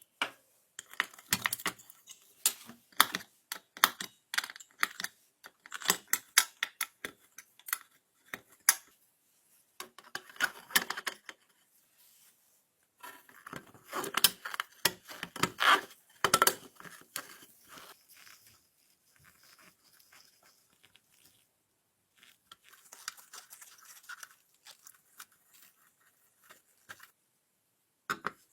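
Hands-on work on small hard parts: a long string of sharp clicks, taps and clatters in clusters, with short stretches of scraping or rubbing, thinning out to scattered quieter taps in the second half.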